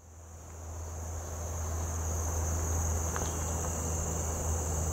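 Steady, high-pitched chorus of evening insects, with a low steady rumble underneath, fading in over the first couple of seconds.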